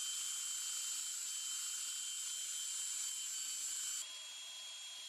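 Cordless tube belt sander running, a steady high motor whine with belt hiss. About four seconds in it drops to a quieter level with a slightly different pitch.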